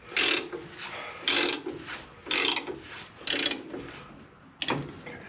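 Hand ratchet wrench clicking in five strokes about a second apart, the last one shorter and sharper, as it turns the forcing screw of a ball joint press to push out a lower ball joint.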